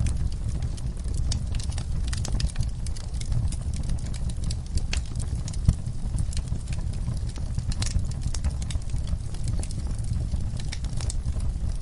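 Campfire crackling: irregular sharp pops and snaps of burning wood over a steady low rumble, with one louder pop a little past the middle.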